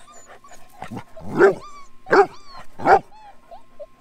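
A dog barks three times, about two-thirds of a second apart, with short high whines in between and after.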